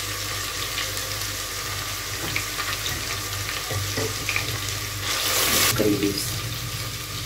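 Chopped onion and whole cumin seeds sizzling in hot oil in an aluminium pot, a steady frying hiss, turning louder for about half a second around five seconds in.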